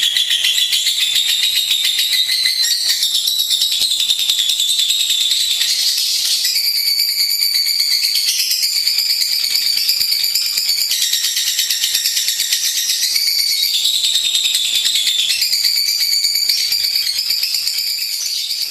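Lovebird singing a long, fast, high-pitched chattering trill without pause, its pitch shifting in steps every few seconds.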